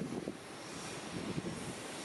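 Airliner engine noise, with wind buffeting the microphone.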